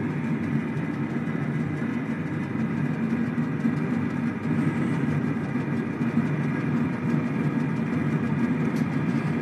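Steady low hum of an air fryer's fan running while it preheats, even and unbroken.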